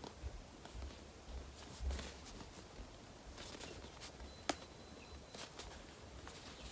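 Faint rustling and scraping of hands squeezing and handling a soft polyurethane foam squishy toy, with a single sharp click about four and a half seconds in.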